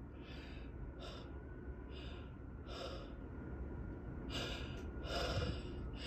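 Short gasping breaths from a person with a head cold, about six of them, growing louder toward the end: the catching inhalations that build up to a sneeze.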